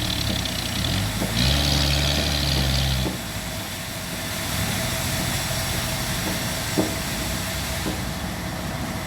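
Sawmill machinery engine running, louder with a hissing edge from about one and a half to three seconds in, then dropping to a lower steady hum with a single click near the end.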